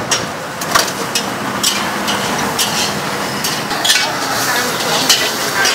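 Metal ladle and tongs clinking against a steel stock pot about once a second, over a steady hiss of cooking at a street food stall.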